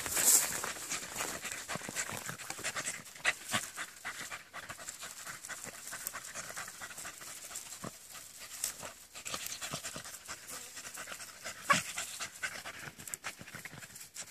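A beagle panting, in short, irregular breaths.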